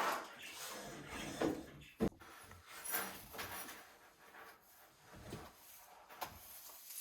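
Household handling noises: irregular rubbing and shuffling, with one sharp knock about two seconds in.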